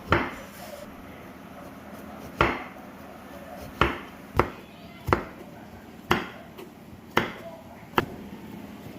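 Knife chopping on a wooden cutting board: eight separate, unhurried strokes, irregularly spaced.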